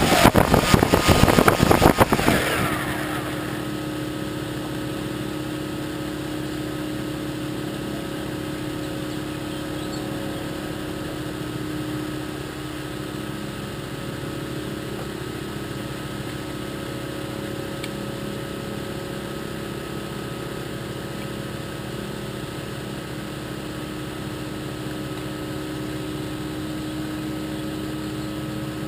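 A loud rushing noise that cuts down about two seconds in, leaving an engine running steadily with an even hum of several constant tones.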